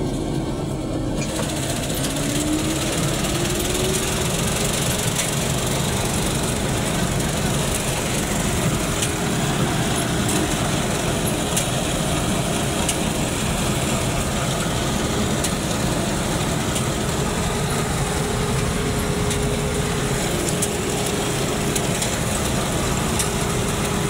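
Combine harvester running while cutting crop, heard from inside the cab: a loud, steady engine and machinery din with a faint steady hum.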